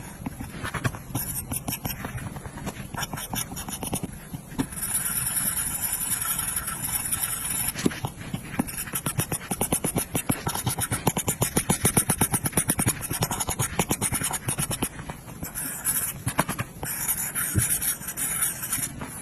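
Apple Pencil tip scraping and tapping on an iPad's glass screen in quick, repeated strokes, as when shading or colouring in.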